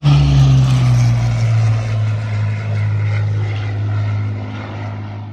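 Propeller-driven piston aircraft engine running with a deep, steady drone. The drone dips slightly in pitch within the first second and then slowly fades.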